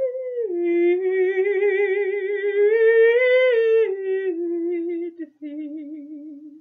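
A woman humming unaccompanied: a slow, wordless melody in long notes with vibrato. It dips, rises again about three seconds in, then settles lower and breaks off suddenly at the end.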